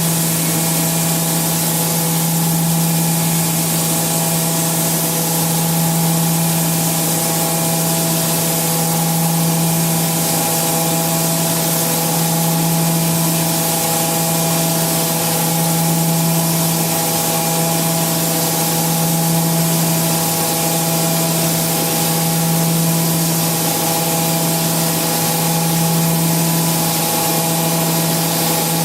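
Milling machine cutting steel with an indexable-insert milling cutter under coolant: a steady machine hum with a few fixed tones over a continuous spray-like hiss, swelling slightly every couple of seconds.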